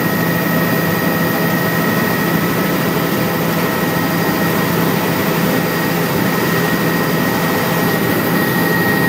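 A small aircraft's engine running steadily, heard from inside the cabin. It is a loud, even drone under a rushing noise, with a constant high whine on top.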